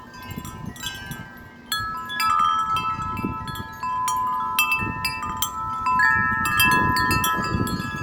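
Several wind chimes rung over and over by strong gusting wind, many ringing tones sounding at once and overlapping. The ringing grows louder about two seconds in, with a low rumble of wind underneath.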